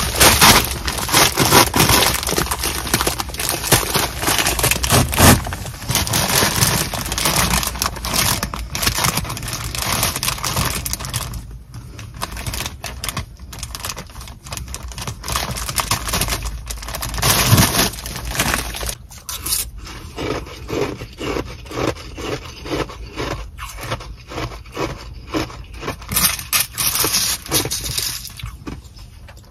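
A plastic bag of Sonic nugget ice crinkling and rustling loudly as it is handled and its knotted handles are untied. In the second half, a plastic spoon scrapes and crunches into the ice in the bag in a steady series of short strokes, about one and a half a second.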